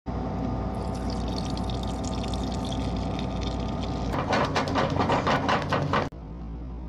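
Egg yolk and dashi mixture pouring through a mesh tea strainer into an aluminium saucepan, over a steady hum. About four seconds in it gives way to quick rhythmic splashing strokes, about five a second, as the liquid is stirred in the pan. These cut off suddenly about a second before the end.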